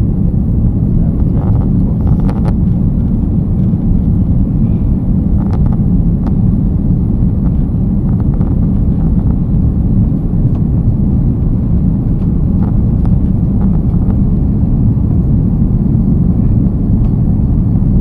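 Steady low rumble of aircraft engines and airflow heard from inside the passenger cabin.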